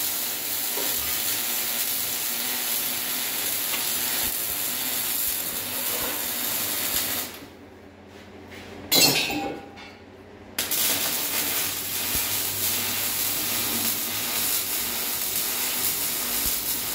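MIG welding arc crackling steadily on steel. It stops a little before halfway, gives one short half-second burst like a tack, then crackles steadily again through the second half.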